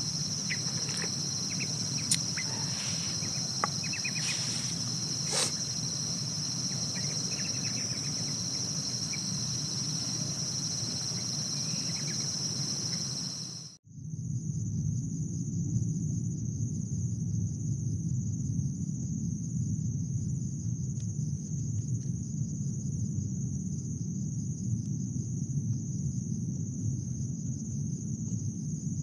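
Insect chorus of steady, high-pitched trills over a low steady rumble. About halfway through the sound cuts off abruptly and resumes with a different high trill, topped by a regular pulsing chirp about one and a half times a second.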